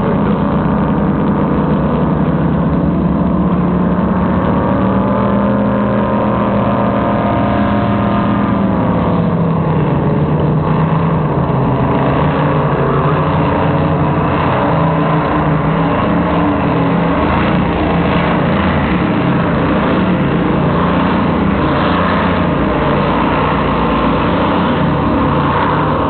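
Offshore racing powerboat engines running at speed across the water, their pitch rising and then dropping away about nine seconds in as a boat passes, followed by a steady drone.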